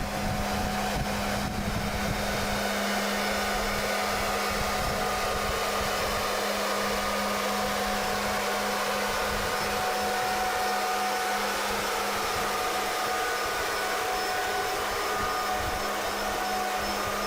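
Steady whirring machine noise with a constant low hum.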